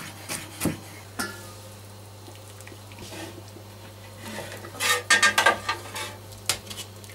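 A few knife chops on a wooden cutting board near the start, then metal tongs clanking and scraping against a cast-iron cauldron and its metal lid while boiled pork trotters are lifted out, a ringing metallic clatter about five seconds in.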